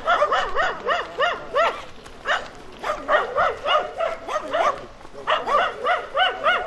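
A dog barking repeatedly in quick runs of several barks, about three or four a second, with short pauses between runs.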